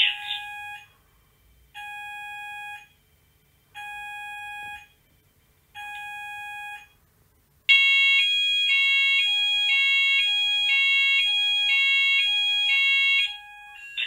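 Fire alarm sounder sounding the pulsed alert tone, one-second beeps with one-second gaps. About eight seconds in it switches to the louder continuous evacuate tone, two pitches alternating rapidly, which marks the changeover from alert to evacuate after the alarm has run for three minutes.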